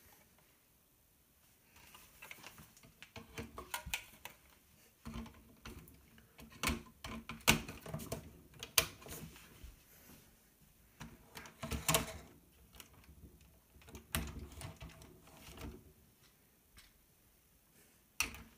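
Plastic Lego Technic parts clicking and clattering as they are handled and fitted onto a model, in irregular bursts with a few sharper snaps and a single click near the end.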